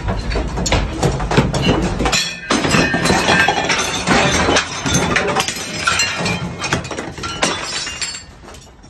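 Household objects and glassware rattling, clinking and clattering in a room shaken by an earthquake, with a low rumble that stops about two seconds in. The rattling dies down near the end.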